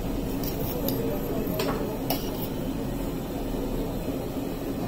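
Steady low background din of a busy food stall, with several light clicks and clinks of utensils in the first couple of seconds.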